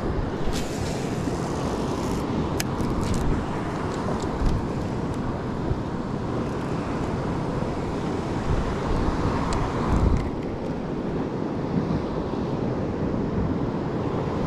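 Wind buffeting the microphone over choppy ocean water: a steady low rush of noise, with a few short clicks in the first few seconds.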